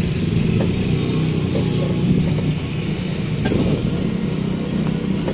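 Passenger tricycle driving along a street, heard from inside its cab: steady motor and road noise with a low hum.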